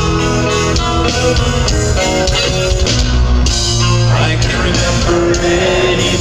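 Live rock band playing: electric guitars carry a melodic line of sustained notes over bass guitar and drums.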